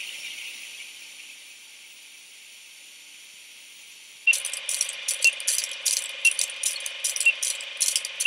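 Television static hiss, then from about four seconds in the clatter of an old film projector with a short beep once a second: the sound effect of a film countdown leader.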